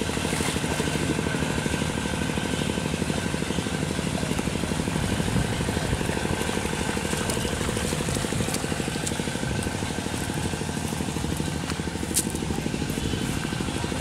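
A small engine running steadily at an even pace, with a couple of light clicks near the end.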